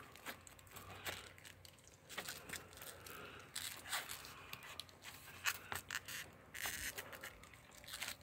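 Fingernails picking and scratching at the shrink-wrap on a plastic DVD case, with faint crinkling of the film and scattered small clicks.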